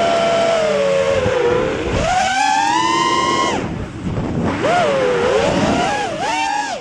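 Emax Hawk 5 FPV racing quadcopter's brushless motors whining, the pitch following the throttle: a sharp rise about two seconds in, a drop-off shortly after three seconds, then wavering up and down near the end.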